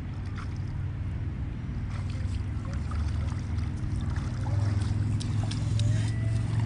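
A steady low motor hum that grows louder through the second half, with scattered light clicks and taps over it.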